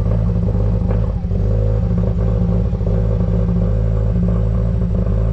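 2016 Subaru WRX's turbocharged flat-four idling high just after a cold start, running rough with irregular stumbles: a cold-start misfire, logged as a P0300 random misfire code.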